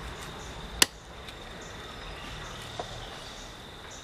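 One sharp cleaver chop through chicken into a wooden chopping block about a second in, and a fainter knock near three seconds. A steady high buzz of insects runs underneath.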